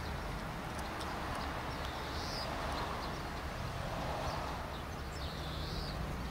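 Honda Accord 2.2 i-CTDi's four-cylinder turbodiesel idling steadily.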